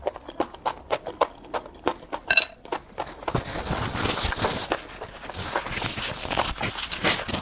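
Close-miked chewing of enoki mushrooms: a quick run of wet smacks and clicks from the mouth. About three seconds in, a steady hiss joins and the smacks come thicker.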